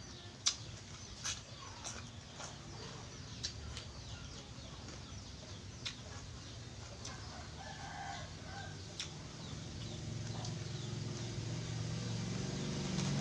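Chickens clucking and a rooster crowing faintly around the middle, over a few sharp clicks of someone eating by hand from a metal tray; the loudest click comes just after the start.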